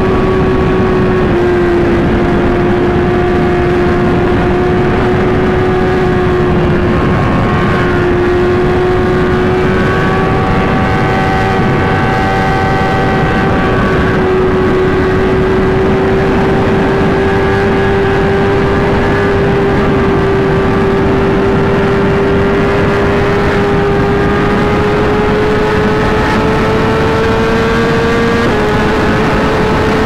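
Inline-four sportbike engine pulling steadily at high revs at highway speed, its pitch creeping slowly upward, with two small dips in pitch, about a second in and near the end. Wind rush from the speed runs under it.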